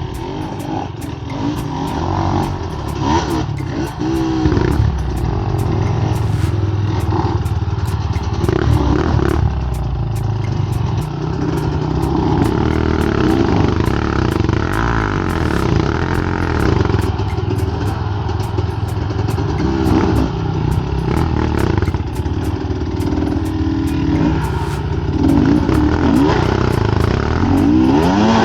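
Dirt bike engines revving up and down unevenly as they labour over rough ground, with frequent short clicks and knocks.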